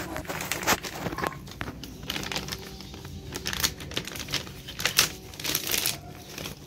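Plastic packaging crinkling and rustling in the hands, a run of irregular crackles.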